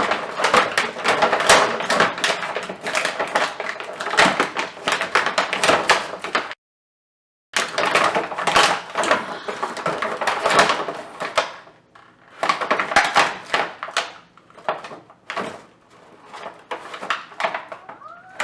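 Cardboard and plastic toy packaging being handled and pulled open, in a run of irregular rustles, clicks and knocks. It cuts to total silence for about a second partway through.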